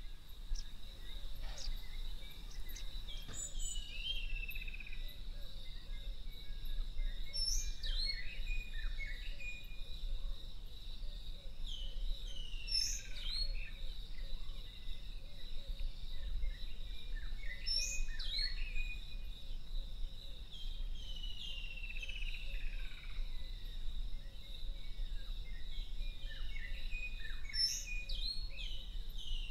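A bird repeating a short song phrase of quick descending whistled notes about every five seconds, over a steady high insect drone and a faint low rumble.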